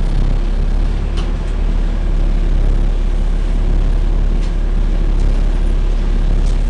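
Engine cooling fan of a Volvo B7TL double-decker bus running with a steady hoover-like whirr over the engine, heard from inside the passenger saloon, with a few light ticks.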